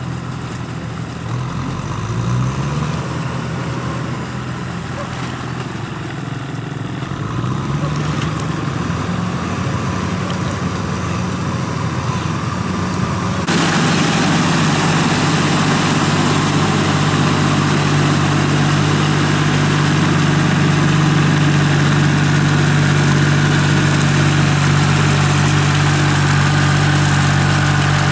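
Tractor engines running while the tractors work a flooded rice paddy on cage wheels. For the first half the engine pitch rises and falls. After a sudden change about halfway through, a closer tractor engine runs louder and steadier.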